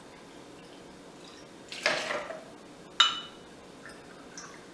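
Vodka poured briefly from a bottle to measure a 2-ounce shot, followed about three seconds in by a single sharp clink that rings briefly.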